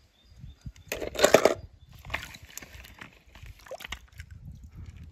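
Water splashing about a second in, then lighter sloshing with scattered small knocks and clicks.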